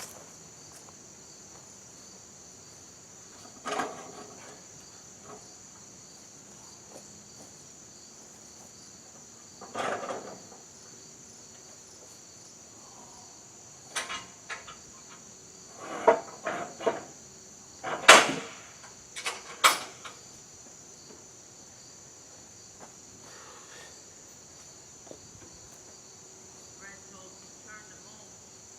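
Steady high chirring of crickets. Over it come scattered knocks and clatters of tools and parts being handled, with the busiest and loudest run of knocks about two-thirds of the way through.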